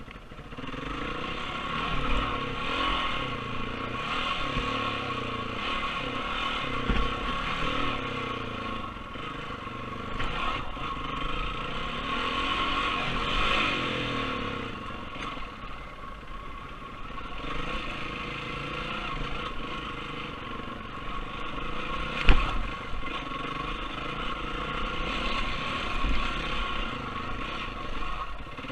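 Enduro dirt bike engine running under changing throttle while riding, its pitch rising and falling as the rider rolls on and off the gas. A sharp knock comes about two-thirds of the way through.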